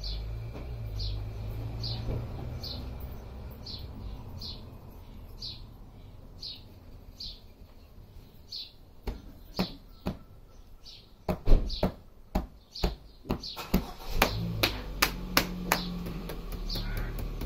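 A small bird chirps over and over, about once every three quarters of a second, over a low hum in the first few seconds. From about nine seconds in, a run of sharp, irregular taps comes in, the loudest sounds here, from hands tapping on the body.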